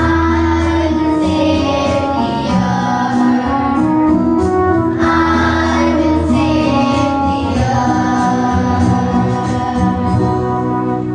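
A group of children singing a song together into microphones, with held notes over an instrumental accompaniment that carries a steady low bass.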